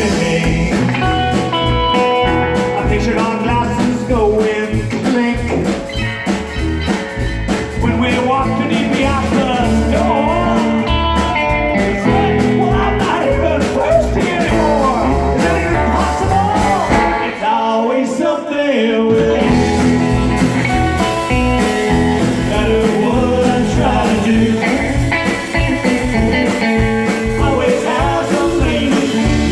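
Live band playing a blues-rock song with guitar, singing and a steady beat; the low end and beat drop out for a moment around the middle before the full band comes back in.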